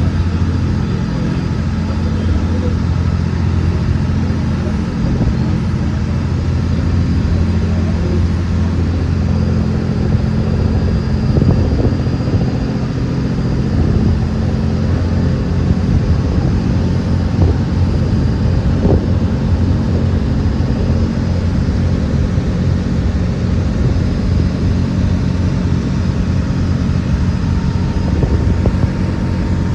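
An engine running steadily: an even, low drone.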